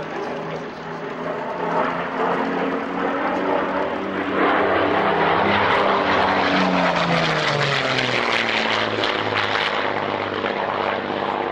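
Twin-engined propeller aircraft making a low flypast. The engine drone builds to its loudest about halfway through, then drops in pitch as the aircraft passes and draws away.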